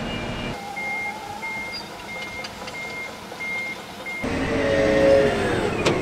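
Construction machine reversing alarm beeping steadily, about one beep every two-thirds of a second, over low machine noise. From about four seconds in, a wheel loader's diesel engine runs loudly with a whine that shifts in pitch.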